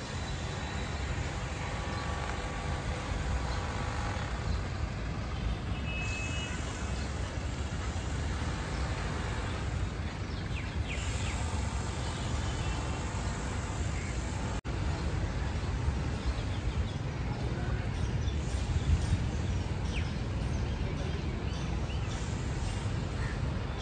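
Outdoor street ambience: a steady wash of road traffic with a low rumble underneath, and no single sound standing out.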